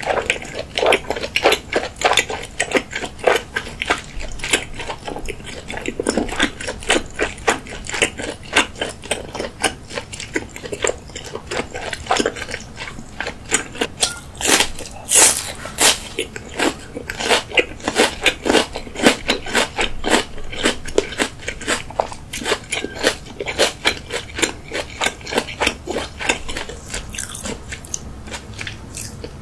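Close-miked chewing: wet smacking and crunching mouth sounds in quick succession. About halfway through come the loudest, sharpest crunches, from biting into a crisp pale vegetable side dish.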